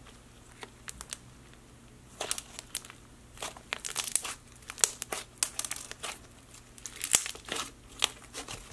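Hands squeezing and stretching a fluffy slime puffed up with instant snow and marbled with jelly slime, giving irregular crackles and pops that come thicker from about two seconds in.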